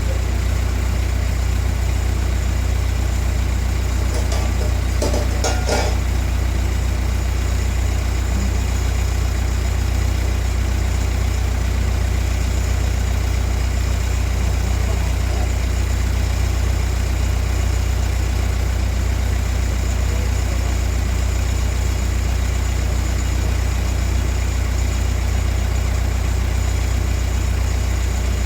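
A steady, low mechanical drone, with a short cluster of clinks about five seconds in.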